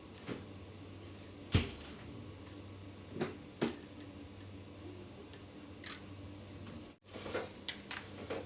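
Scattered clicks and taps of eating utensils against a dish during a meal of noodles, over a steady low hum. The loudest knock comes about a second and a half in, with a tighter run of clicks near the end.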